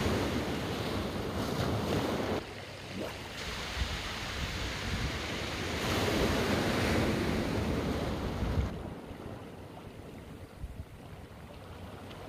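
Ocean surf breaking and washing up a rocky beach, in two surges that swell and ease off, then quieter near the end.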